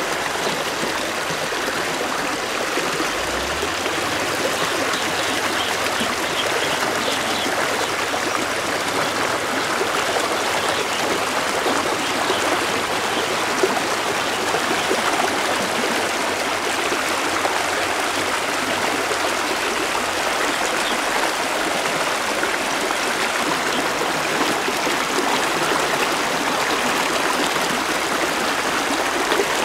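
Shallow rocky river rushing steadily over stones, with one brief knock about halfway through.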